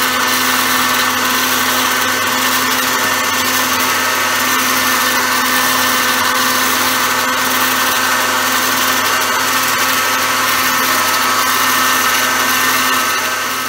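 Small electric pasta machine running steadily as its cutter slices a sheet of egg-noodle dough into thin noodles, a constant motor whine with a hum beneath. It cuts off suddenly at the end.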